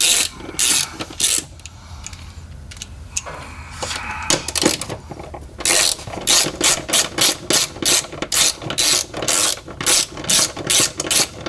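Hand socket ratchet clicking in short bursts as bolts are backed off the fuel pump and filter bracket: a few bursts at the start, a quieter stretch, then steady ratcheting about two or three strokes a second from about halfway on.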